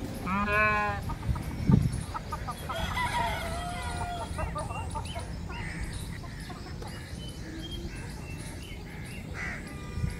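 Farmyard poultry: chickens clucking and calling in short, warbling calls, with one louder pitched call about half a second in.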